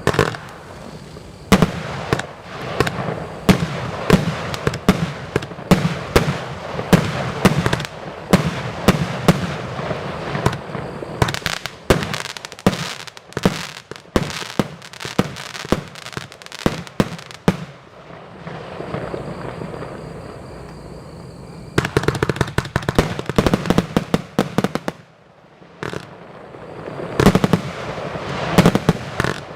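A 232-shot firework compound cake firing in rapid, irregular volleys of launch thumps and bursting shells. About two-thirds through the shots thin out into a quieter stretch, then fast volleys resume.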